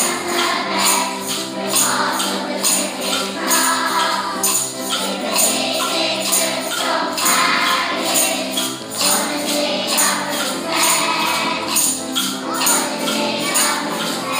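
Upbeat music with a steady tambourine beat, possibly with some singing.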